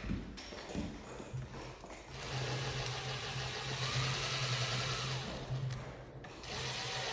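Power drill running, a steady hum for about four seconds starting about two seconds in, then a second short run near the end.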